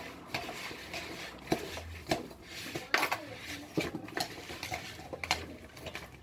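Sliced mango being tossed and mixed by hand in a plastic bowl in a stainless steel sink: irregular clacks and knocks as the bowl and fruit shift against each other and the sink.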